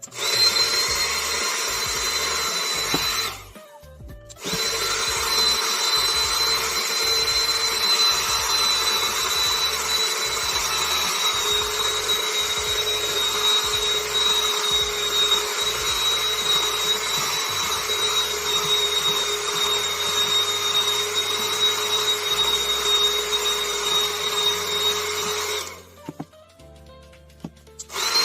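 Cordless mini vacuum cleaner's small motor running with a steady high whine; it is switched off about three seconds in, switched back on a second later, and switched off again near the end.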